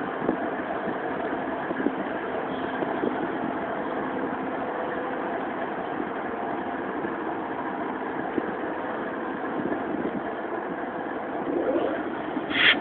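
GE ES44AC diesel-electric locomotive running steadily, its GEVO twelve-cylinder engine giving an even low drone with a faint hum. A short high-pitched squeal comes near the end.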